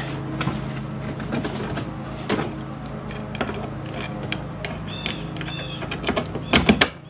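Metal bimini-top frame poles being snapped into their holders on the boat's gunwale: a series of sharp clicks and knocks, about one a second, with the loudest cluster near the end.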